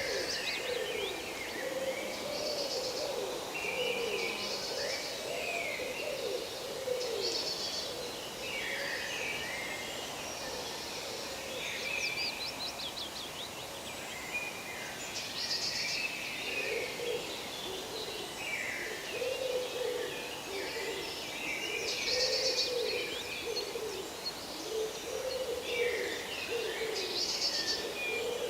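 Forest birdsong: many birds chirping and trilling, with repeated low wavering calls from another bird underneath.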